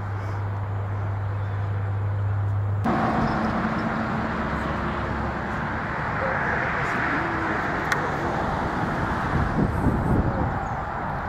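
Outdoor background noise, mostly distant road traffic: a steady rush that swells midway. A low hum runs underneath and cuts off abruptly about three seconds in.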